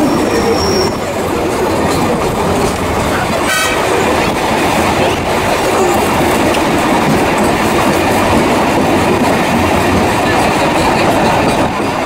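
Diaz Express tourist train running along the rails, heard from a carriage window: a steady, loud rolling noise of wheels on track. There is one brief high tone about three and a half seconds in.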